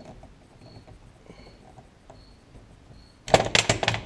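Faint scratchy handling of a hunting knife and its handle fittings on a workbench, then about three seconds in a short, loud burst of several rapid clattering knocks as the knife and parts hit the bench clamp.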